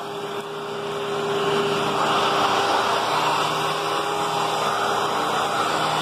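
Hoover WidePath bagless upright vacuum cleaner running steadily, a constant motor rush with a faint hum in it, dipping slightly at the start and building back up over the first two seconds.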